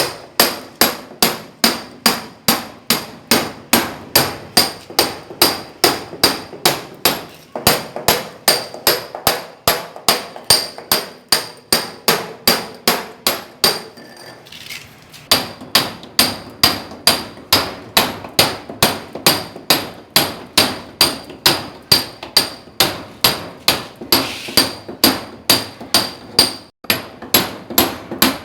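Hand sledgehammer striking a steel masonry chisel in steady blows, about two to three strikes a second, each with a metallic ring. The hammering pauses briefly about halfway through, then carries on at the same pace.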